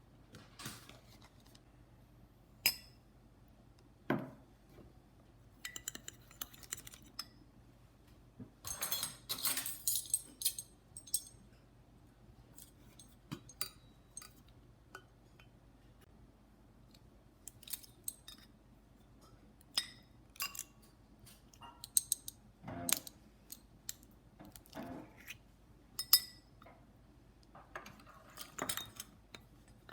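Cutlery and crockery clinking: scattered sharp clinks and knocks, like a spoon against a mug and dishes being handled, with a busier rattle about nine seconds in.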